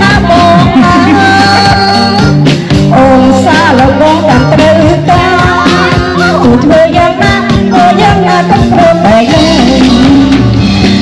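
A Khmer band playing loud, amplified music: a wavering vocal melody over steady bass notes and a drum beat.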